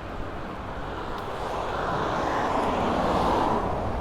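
A motor vehicle passing, its noise swelling to a peak about three seconds in and easing off, over a constant low rumble.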